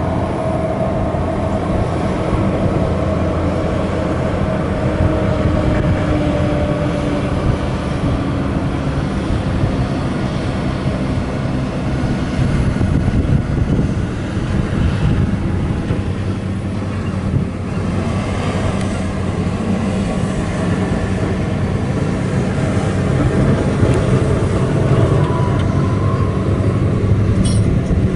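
Diesel engine of a large mining haul truck fitted as a water tanker, running steadily as it drives slowly over rough ground. It makes a low, even drone with a fainter whine that sinks slightly in pitch over the first several seconds.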